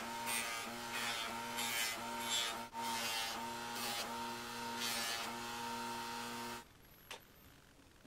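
Bench grinder with a buffing wheel running with a steady motor hum, with recurring rasping as a cast aluminium saw housing is pressed and turned against the wheel to polish it. The sound stops abruptly about two-thirds of the way in.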